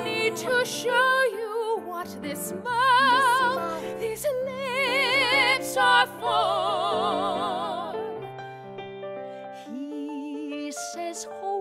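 Women singing long held notes with wide vibrato over piano accompaniment in a musical-theatre song; about eight seconds in the singing eases off, leaving softer, lower music.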